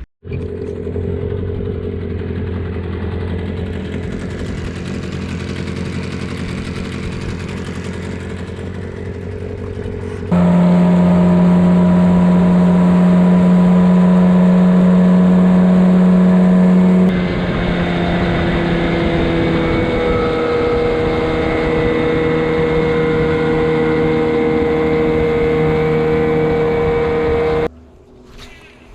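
Boat motor running at a steady speed under way. The pitch and loudness jump abruptly twice, about a third and about halfway through, and the sound cuts off sharply near the end.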